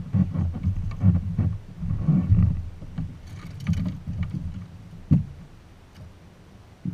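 Irregular low thuds and knocks on a bass boat's deck and hull as gear is handled and a deck compartment is opened, with a light rattle about three seconds in and a sharper single knock about five seconds in.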